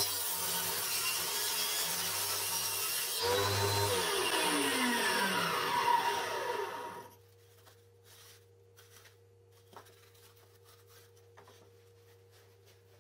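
Table saw running, then switched off about three seconds in, its blade spinning down with a falling whine over roughly three seconds. Afterwards, faint clicks and rustles of the cut board pieces being handled over a steady low hum.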